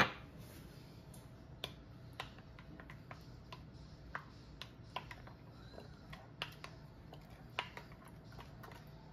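A small glass spice jar set down sharply on the countertop, then a spoon clicking and scraping irregularly against a glass mixing bowl as a thick yogurt sauce is stirred.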